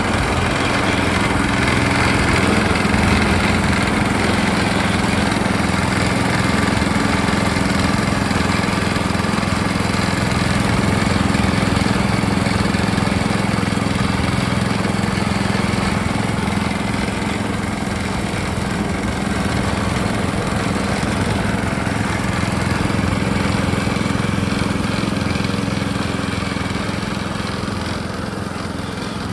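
The small gasoline engine of a vintage gold trommel wash plant, running steadily at a constant speed as it drives the trommel drum.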